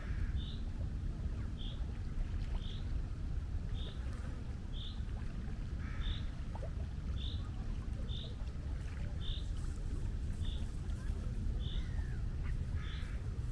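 Seashore ambience: a steady low rumble of sea and wind, with a bird's short high chirp repeated about once a second and a few lower bird calls near the start, middle and end.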